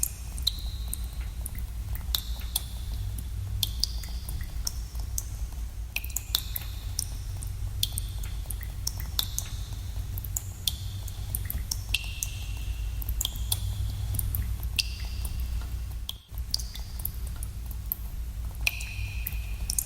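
Water drops falling into cave pools, each a sharp plink with a short ringing, echoing tone, coming irregularly about one or two a second over a steady low rumble. The background briefly drops out about 16 seconds in.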